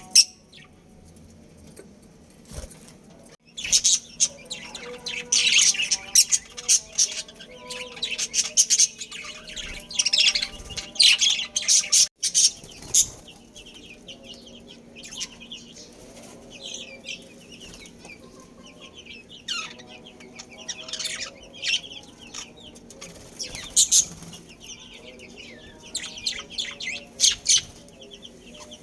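Budgerigars chattering and chirping in quick, scratchy bursts, busiest for the first several seconds after the start and again in spells toward the end, over a faint steady hum.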